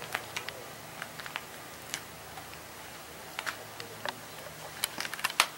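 A scatter of light, irregular clicks and ticks, coming more often and sharpest near the end, over a faint steady low hum.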